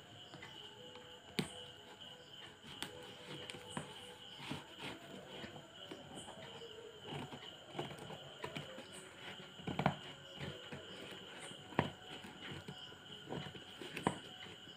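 Scissors and a pen point scraping and snipping at packing tape on a cardboard parcel: faint, irregular clicks, rubs and scratches, the sharpest about ten seconds in.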